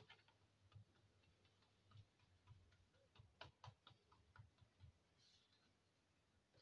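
Faint, irregular soft taps and pats of fingertips and palm pressing a round of wheat dough flat on a floured granite countertop.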